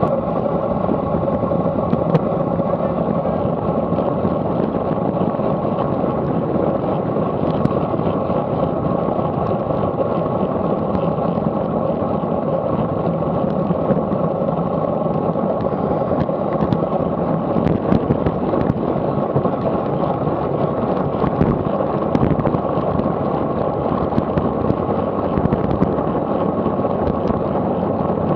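Steady rush of wind over the microphone of a camera on a road bike at about 28 mph, mixed with tyre and road rumble on tarmac, with a few small rattles coming through.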